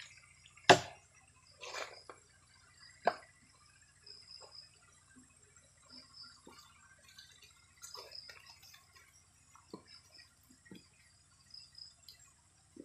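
Scattered wooden knocks and clunks of cut logs being handled and set on a charcoal-making stack, one sharp knock under a second in the loudest, with smaller taps after. Insects chirp steadily in the background.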